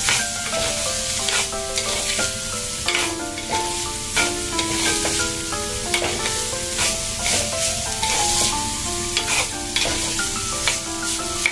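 A ladle scraping and stirring chopped carrot, beans and onion around a clay pot, with many short scraping strokes over the steady sizzle of the vegetables frying in oil.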